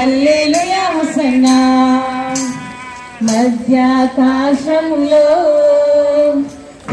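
Women singing a Telugu hymn in unison, holding long sustained notes with brief breaks between phrases.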